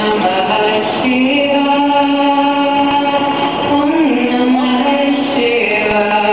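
Street musician's performance: long held, sustained notes, with a short slide in pitch about four seconds in.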